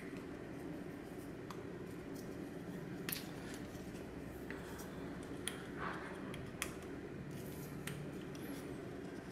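Faint scattered clicks of small plastic and metal parts of a Delta Touch2O faucet sprayer wand being handled and pressed together by hand, about one every second or two, over a low steady hum.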